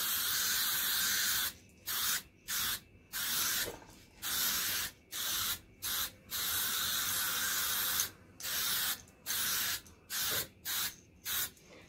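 Aerosol can of Dupli-Color automotive spray paint hissing in a series of short bursts with brief pauses between, a longer spray at the start and another in the middle.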